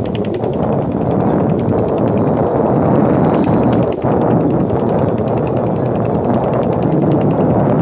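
Steady, loud running of a boat's diesel engine with an even, fast ticking rhythm, mixed with wind rumbling on the microphone.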